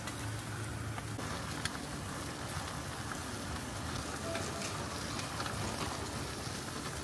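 Chicken yakitori skewers sizzling on a stall grill: a steady hissing sizzle with a few faint crackles now and then.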